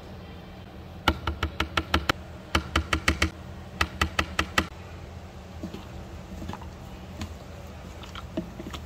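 Quick runs of sharp, light clicks, about eight a second, in three short bursts a few seconds in, then a few scattered fainter clicks, over a steady low hum.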